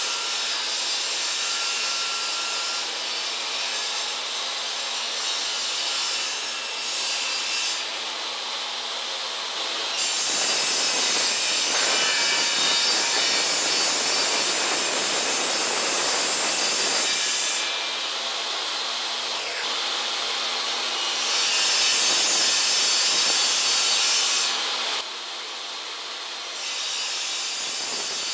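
Table saw running, its spinning blade ripping through wooden boards. The cut gets louder and rougher twice for several seconds while the blade is in the wood, with the saw's steady whine between cuts.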